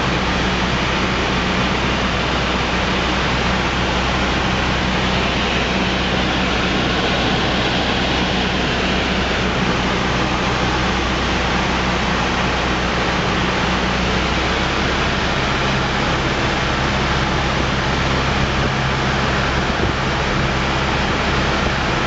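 Cessna 172's piston engine and propeller droning steadily in the cockpit under a loud rush of airflow noise, on approach to landing. The engine's hum shifts to a lower note about fifteen seconds in.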